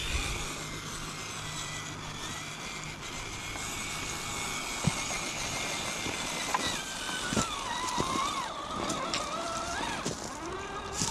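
Whine of an Axial Early Bronco RC rock crawler's electric motor and gears while it crawls, steady at first, then dropping in pitch and wavering as the motor loads up after about seven seconds. Several sharp knocks of the tires and chassis on rock come through it.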